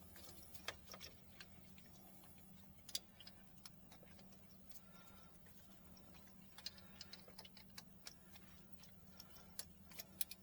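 Faint, irregular small clicks and ticks of a screwdriver tightening a wire's terminal screw on a circuit breaker, over a steady low hum.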